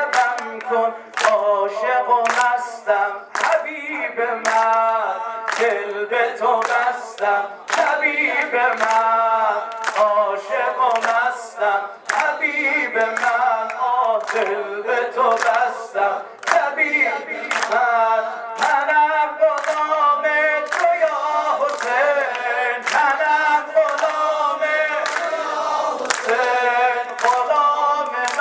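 A man singing a Persian devotional song (maddahi) into a microphone, with a crowd singing along as a chorus. Repeated sharp hand claps keep time.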